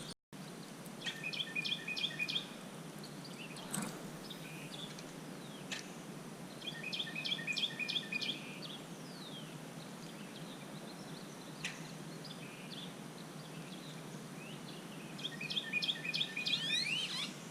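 A songbird sings a short phrase of rapid repeated chirps three times, roughly every six to eight seconds, over a steady outdoor background hiss, with a few faint single clicks in between.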